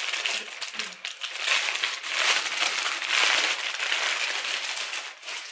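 Clear plastic packaging bag crinkling and rustling as hands work it open, a continuous crackle that is loudest in the middle.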